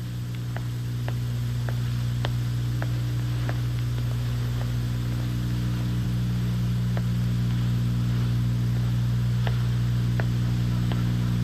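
A steady low electrical hum with a buzz of evenly spaced overtones and a light hiss. Faint light ticks run over it, about two a second in the first half and sparser later.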